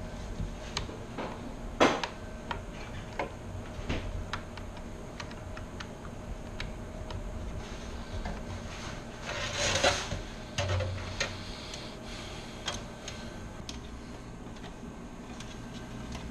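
Scattered light clicks and taps from computer parts being handled and fitted during a PC cooler install, the sharpest about two seconds in, with a short rustling scrape about ten seconds in, over a low steady hum.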